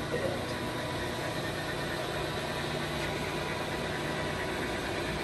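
Steady mechanical hum with a hiss behind it and a few faint steady tones, with no change in level.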